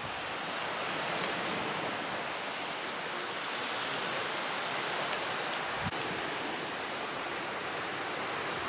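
A steady, even rushing noise with no pauses.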